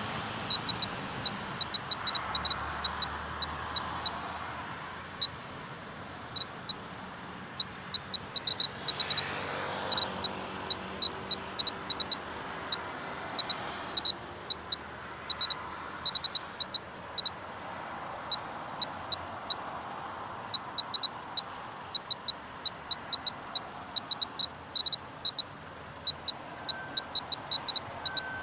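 Clear-Pulse Mr. Gamma A2700 radiation meter's buzzer giving short high beeps at uneven intervals, a few a second, one for each detected count at a low background dose rate of about 0.04 µSv/h. A steady traffic hum lies underneath, and a vehicle passes about ten seconds in.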